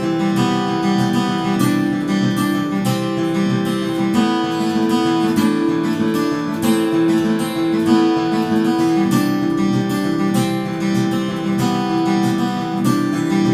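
Background music on acoustic guitar, with a steady rhythm of plucked notes.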